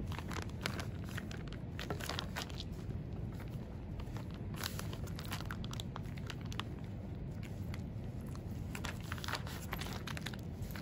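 Hands squeezing and pressing a zip-top plastic bag of mashed strawberries in liquid: irregular plastic crinkles and soft wet squishes, over a steady low hum.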